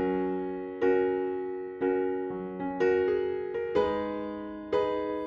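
Intro music: electric piano chords struck about once a second, each ringing out and fading.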